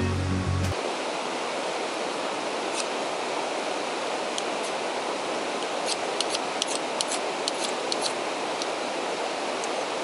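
Steady outdoor hiss with a run of sharp clicks about six to eight seconds in, from a hand working just above a brass alcohol (spirit) stove as it is being lit. Background music cuts off just under a second in.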